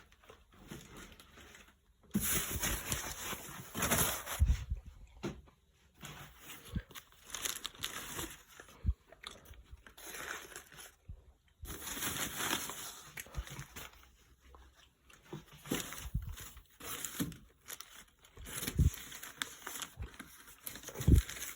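Newspaper packing being crumpled, rustled and torn in irregular bursts, with short pauses between handfuls.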